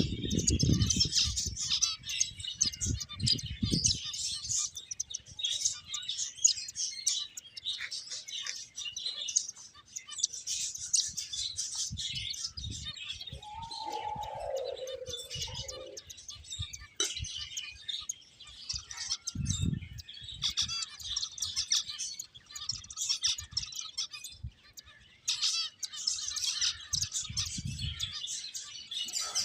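A group of finches chirping continuously in rapid, overlapping high calls. Low thumps come in bursts at the start, about two-thirds of the way through and near the end, and a short wavering lower tone sounds once around the middle.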